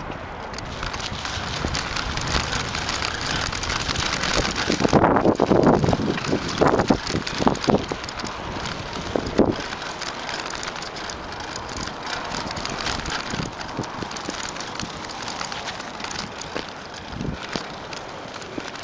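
Mountain bike riding over a rutted dirt trail: knobby tyres rolling on dirt, the bike and camera rattling, and wind on the microphone. It gets louder and rougher about five to eight seconds in.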